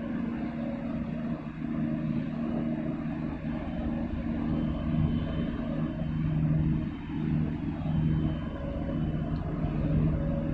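Steady low drone of a large container ship's engines and machinery as the ship passes close by, with a deep hum that swells and eases several times.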